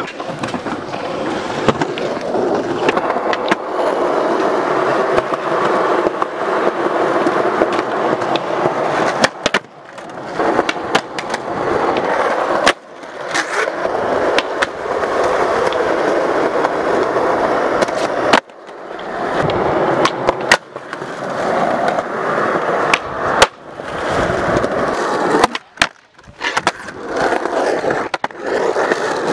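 Skateboard wheels rolling on concrete, broken by sharp clacks of the board popping and landing. The sound cuts off abruptly several times and starts again.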